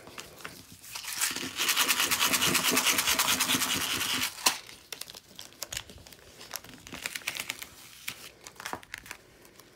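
Transfer tape being rubbed down over a cut adhesive-vinyl decal: fast back-and-forth scrubbing for about three seconds, then a single click and lighter crinkling of the plastic sheet as it is handled.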